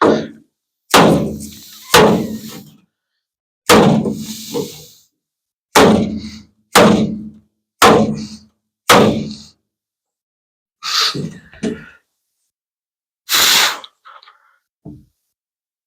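Body hammer striking the front-end sheet steel of a 1950 Ford F1, working out a dent: a series of about ten sharp, loud blows, mostly about a second apart with short pauses, each with a brief ring.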